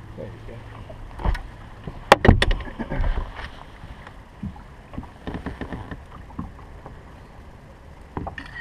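Sharp knocks and thumps on a bass boat's deck as a freshly landed bass is picked up and handled, the loudest a quick cluster about two seconds in, followed by scattered lighter clicks.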